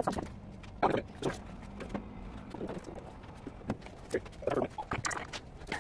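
Irregular knocks and clinks of a wire oven rack loaded with glass bottles being lifted and handled on a wooden workbench, a dozen or so separate knocks spread unevenly.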